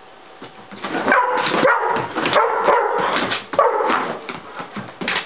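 Pit bull barking and whining excitedly while chasing a light spot, starting about a second in and easing off near the end.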